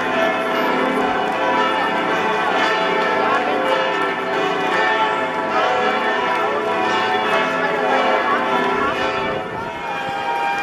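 Church bells pealing, several bells ringing together in a continuous full peal of overlapping tones.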